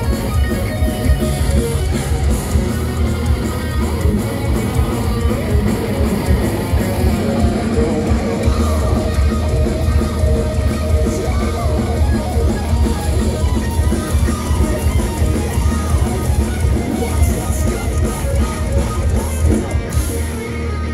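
A thrash metal band playing live at full volume: distorted electric guitars over a drum kit, with no vocals recognised.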